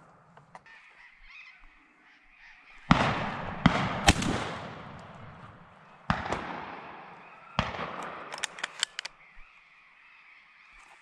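12-gauge hunting shotgun fired at flying doves: a loud blast about three seconds in, followed by sharp cracks, then two more blasts about six and seven and a half seconds in, each trailing off. A quick run of sharp clicks comes near nine seconds.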